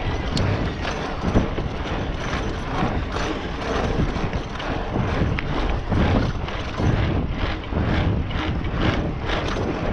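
Scott Spark 960 full-suspension mountain bike rolling fast over rough, cracked asphalt: a steady tyre and road rumble with frequent irregular clicks and rattles from the bike.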